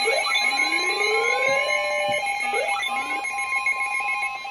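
Emergency weather-alert attention signal announcing a special marine warning. A steady, high-pitched alarm tone runs with a pulsing tone beneath it, and several rising sweeps are laid over them during the first three seconds.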